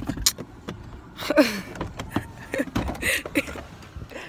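A car's door locks and door being worked, a run of sharp clicks and knocks, with a few short vocal sounds between them.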